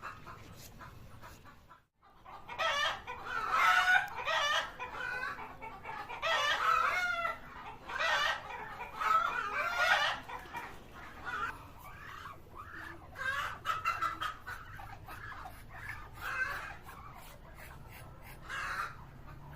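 Chickens clucking and calling over and over, the loudest calls in the first half, trailing off into smaller clucks later on.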